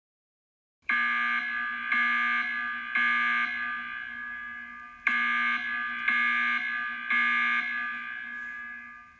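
A bell-like electronic alert chime, struck about every half second in a run of fading strokes that starts about a second in and begins again about four seconds later, dying away at the end.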